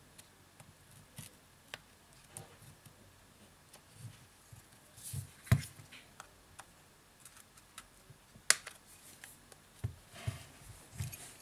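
Scattered light clicks and taps of a precision screwdriver and fingers handling a smartphone's metal body and small parts. Two sharper clicks stand out, one about halfway through and one about three-quarters through.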